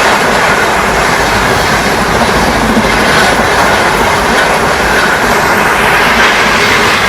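Indian express train, the August Kranti Tejas Rajdhani, running through the station at speed: a loud, steady rush of its wheels on the rails as the coaches pass close by.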